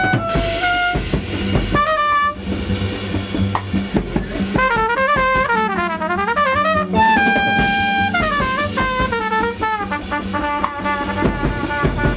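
Live jazz: a trumpet plays a melody over drum kit and bass in a 9/8 groove, with fast up-and-down runs about midway and a long held note just after.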